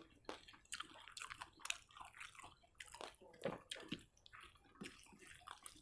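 Faint, close-up chewing and mouth sounds of someone eating rice and curry: a scatter of small, irregular wet clicks and smacks.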